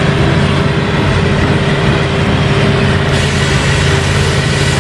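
Large mobile crane truck's diesel engine running steadily, a low drone under a steady hiss.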